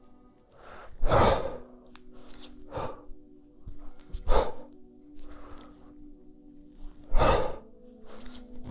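A kettlebell lifter's sharp, forceful breaths in time with long cycle press reps, the loudest coming about every three seconds, over quiet background music.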